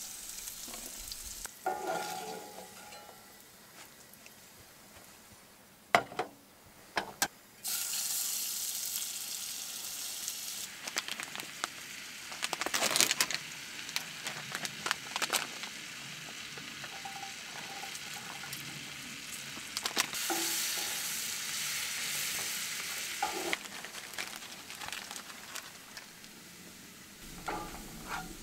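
Food sizzling in a pan and being stirred with a utensil. A couple of sharp knocks come about six and seven seconds in. The sizzle starts abruptly about eight seconds in, then swells and fades with small scraping clicks as it is stirred.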